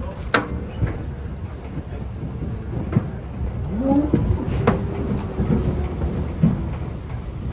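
Cattle trailer loaded with dairy cows: a steady low rumble with scattered sharp knocks and clanks, and a short low sound about four seconds in that rises and then falls in pitch.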